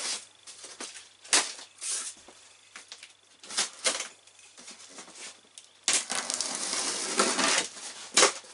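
Utility knife slitting packing tape and scraping along a cardboard box: several short scratching strokes, then a longer continuous slit about six seconds in.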